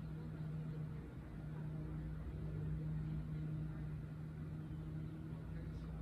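A steady low machine hum, one constant low tone over a rumble, like a motor running somewhere near.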